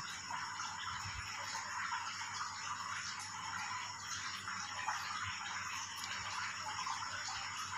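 Faint, steady background hiss with no distinct sound events: ambient room tone.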